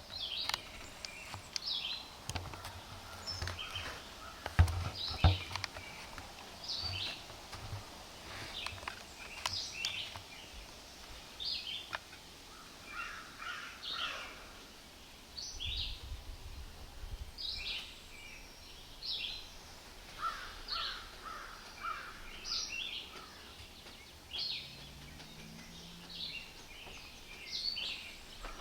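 Songbirds calling repeatedly, short high notes every second or two, with bursts of lower chattering calls. Two dull low thumps about five seconds in.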